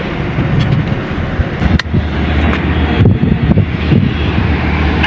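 Wind buffeting the microphone as a fluctuating low rumble over a steady low engine drone, with a few sharp clicks; the loudest click comes a little under two seconds in.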